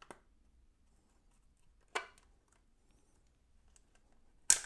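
Plastic latches of a Seagate One Touch external hard drive enclosure snapping as the case is pried apart by hand. There is a click about two seconds in, and a sharper, louder snap near the end as the shell comes open.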